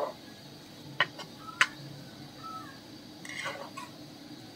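Steel ladle stirring and scraping a thick chilli-coconut masala frying in oil in an iron kadai, with two sharp clinks of metal on iron about a second and a second and a half in.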